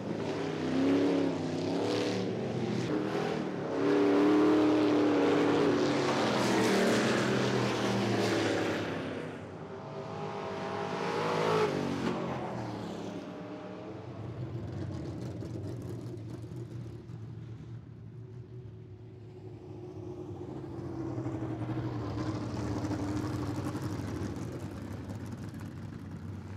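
Stock cars racing on a dirt oval, their engines revving and rising and falling in pitch as they pass close by. The loudest passes come in the first ten seconds and again about eleven seconds in, then the field runs more distantly, with another swell a few seconds before the end.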